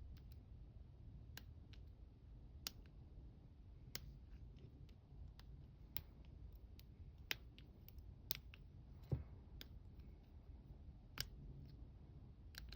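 Faint, irregular small metal clicks of a half-diamond lock pick and tension tool working the pins of a challenge padlock, scattered a second or so apart, with one louder click about nine seconds in, over a low steady hum.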